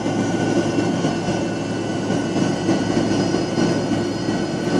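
Cabin noise inside a Fokker 70 airliner: its rear-mounted Rolls-Royce Tay turbofans run steadily, a constant rumble with a thin, even whine on top that neither rises nor falls.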